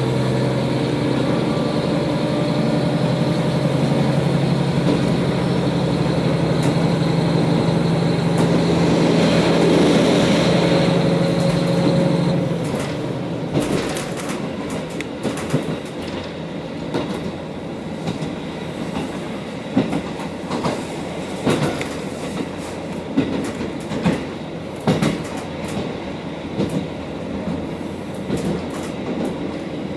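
KiHa 40 diesel railcar heard from inside the passenger cabin: its diesel engine runs under power and grows louder, then about twelve seconds in the engine drops away as the railcar coasts. After that the wheels rumble and click irregularly over the rail joints.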